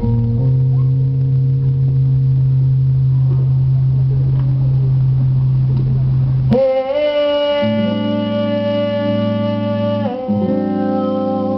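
Live rock band playing: a held low note rings for about six seconds, then a long sustained high note with a slight upward bend comes in over lower held notes, lasting a few seconds before changing pitch.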